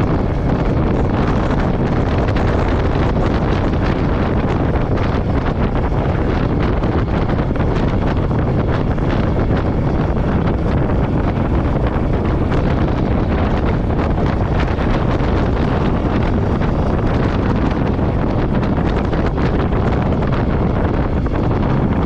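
Wind buffeting the microphone on a moving Royal Enfield Meteor 350, with the bike's single-cylinder engine running beneath it. The sound holds steady with no gear changes or revs standing out.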